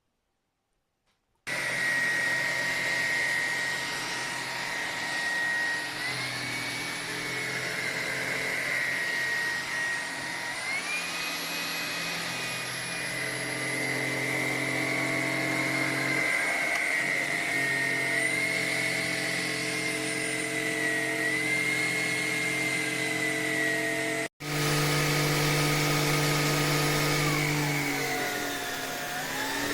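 Cordless stick vacuum cleaner (Tineco A30S) switching on about a second and a half in and running steadily. Its motor whine shifts up and down in pitch several times and is broken off sharply for an instant near the end.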